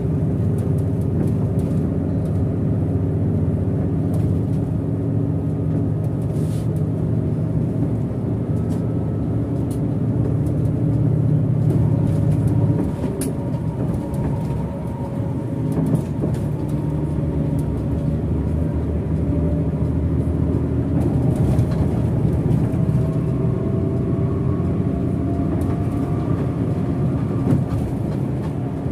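Hino RK8 bus's six-cylinder diesel engine running with road noise, heard from the driver's seat. About halfway through the deep drone drops off suddenly, and after that a higher engine note rises slowly.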